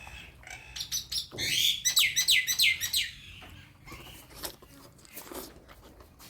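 A bird chirping a quick run of about seven falling notes, with scattered clicks of eating before and after.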